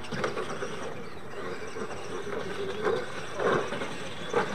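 Clod Buster-based RC monster trucks running over a dirt track, their motors and tyres making a steady rough noise, with several sharp thumps in the second half as the trucks hit and land off the ramps.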